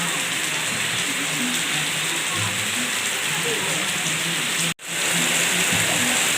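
Heavy rain of a rainstorm falling steadily, a dense even hiss. About three-quarters of the way through it cuts out for an instant and returns a little louder.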